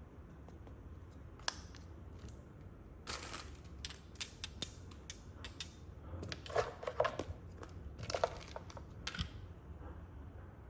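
Small hard revolver parts being handled and clicked together: scattered sharp clicks and light clattering, with a short rustle about three seconds in and the busiest clatter toward the second half.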